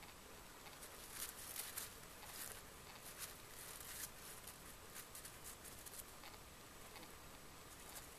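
Faint, irregular soft hoof steps of a horse walking on grass and fallen leaves.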